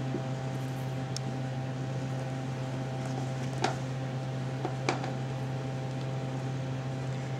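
Steady low hum, with a few light plastic taps and clicks about three and a half and five seconds in as a kitten paws at a plastic ball-track scratcher toy.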